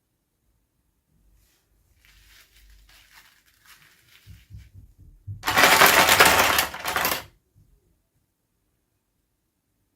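Toy packaging being handled: faint scattered rustling, then a loud crinkling burst lasting about two seconds, as the packaging is torn or crushed open.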